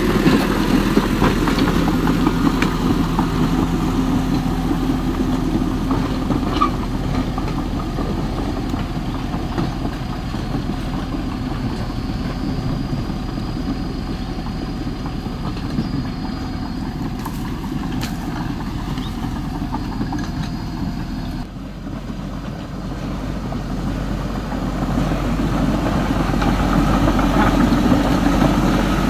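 Engine-like running of construction machinery, steady and idling, with a brief drop about three-quarters of the way through before it builds up again.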